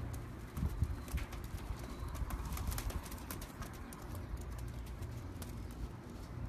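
Kashmiri teddy pigeons cooing low, with many sharp clicks and taps scattered through, thickest about half a second in and again around the middle.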